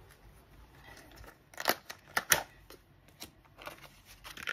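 Stiff clear plastic packaging of a small screwdriver set being handled and opened, giving a few sharp clicks and crackles, most of them bunched together around the middle.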